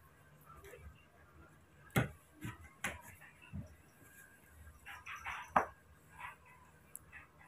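A few sharp clinks and knocks of small drinking glasses, a spoon and a metal tray being handled, one about two seconds in, another just before three seconds, and a short cluster around five seconds.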